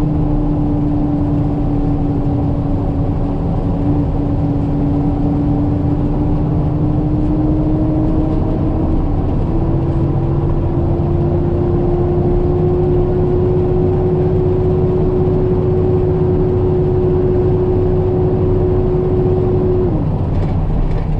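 Peterbilt 337 medium-duty tow truck's diesel engine and road noise heard inside the cab while driving at a steady pace. A low rumble runs under a steady whine that rises slowly, steps up about halfway through, and falls away near the end.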